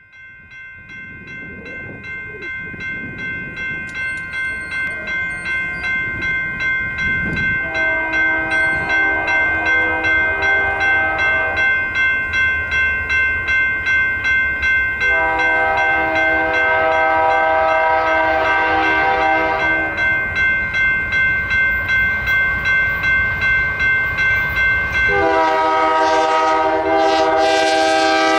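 A railroad crossing bell rings steadily at about two strokes a second while an approaching Union Pacific freight, led by GE AC44CWCTE locomotive UP 5637, sounds its multi-chime air horn for the crossing: a long blast about a quarter of the way in, a longer one from about halfway, and another beginning near the end. A low rumble of the oncoming train grows underneath.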